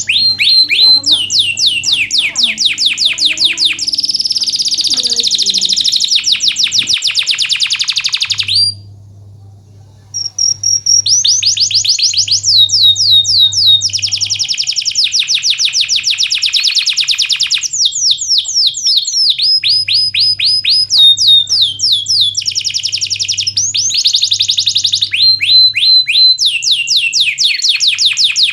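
Domestic canary singing a long, fast song of rapid trills and rolling runs of repeated notes. It breaks off for about two seconds a third of the way through, then carries on.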